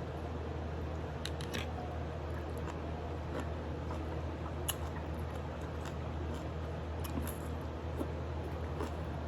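Eating adobo chicken feet: scattered small clicks and wet squishing sounds of chewing and nibbling, over a steady low hum.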